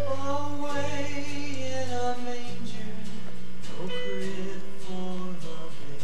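Music with a singing voice over sustained low notes; the low notes change about two and a half seconds in and again near the end.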